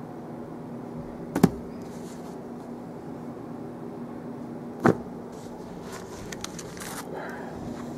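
Books being handled: two sharp knocks about three and a half seconds apart, then light rustling near the end, over a steady low hum.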